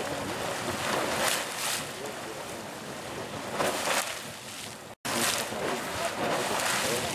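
Super Frying Pan Geyser erupting: water splashing and bursting out of its vent in surges every second or two over a steady rush of spraying water. The sound cuts out for an instant about five seconds in.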